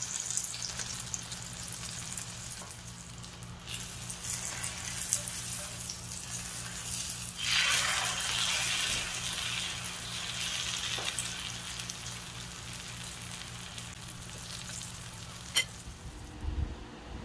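Egg-coated eggplant omelette frying in shallow oil in a cast-iron skillet: a steady sizzle with crackling, louder for a second or two about halfway through. A single sharp tick near the end.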